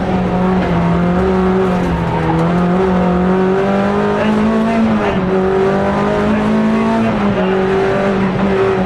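Rally car engine heard from inside the cockpit at speed, running hard with its pitch rising and dropping several times, over road and tyre noise.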